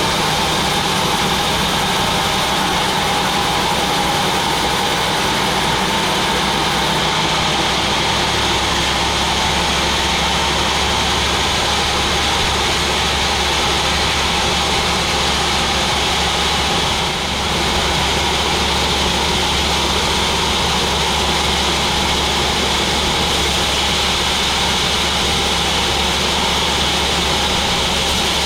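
Sawmill saw machinery running steadily: a loud, continuous mechanical drone with a constant high hiss over a low hum, and a brief slight dip about halfway through.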